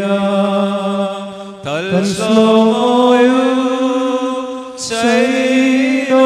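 Slow Malayalam liturgical chant, the hymn sung at the kiss of peace, in long drawn-out notes. A new phrase begins about two seconds in and another near the end.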